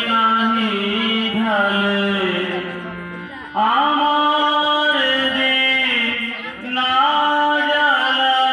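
A man singing a slow melody with long held, gliding notes, accompanied by a harmonium. The music dips and pauses about three seconds in, then comes back in strongly.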